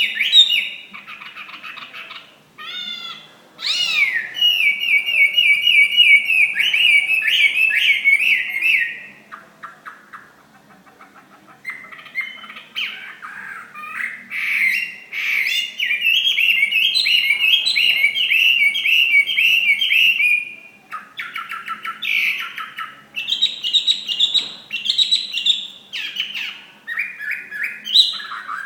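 Chinese hwamei (họa mi) singing loudly in long, varied phrases of rapid repeated notes and sliding whistles. The song breaks off into a quieter stretch about a third of the way in, then resumes.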